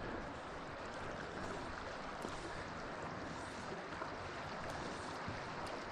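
Steady rush of river water running over a shallow stretch.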